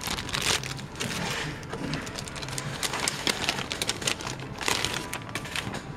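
Clear plastic packaging bags crinkling and rustling as they are handled, in an irregular run of crackles.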